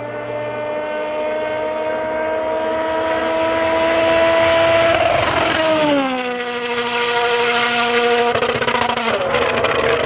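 A 2018 World Rally Car's turbocharged four-cylinder engine at high revs, flat out. Its pitch climbs slowly as it approaches, drops sharply about halfway, holds steady, then drops again near the end.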